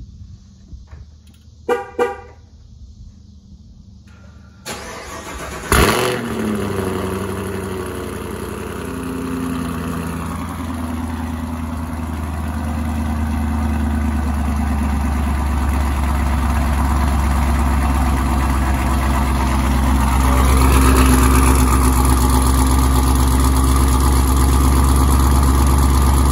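A Camaro ZL1's supercharged 6.2-litre LT4 V8 with a Borla exhaust is cranked about five seconds in and fires with a sharp bark, then runs at a fast idle that settles lower in pitch over the next few seconds into a steady, deep idle through the quad tailpipes. The idle grows a little louder about twenty seconds in. A short pulsing tone sounds about two seconds in, before the start.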